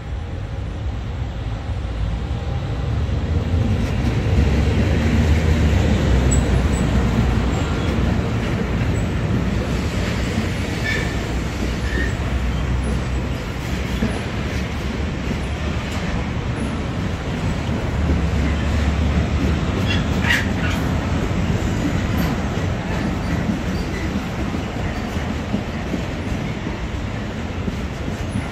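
Freight train of loaded car-carrier wagons, hauled by an E652 electric locomotive, rolling past with a steady rumble of wheels on rail, loudest a few seconds in. A few short high-pitched wheel squeals sound midway.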